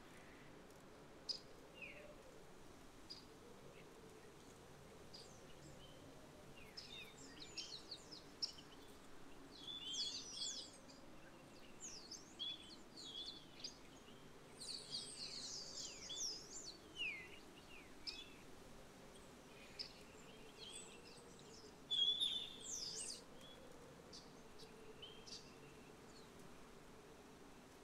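Rats squeaking: many short, high-pitched squeaks and chirps, sparse at first, busiest through the middle, with the loudest cluster a little before the end. A faint low hum lies under them.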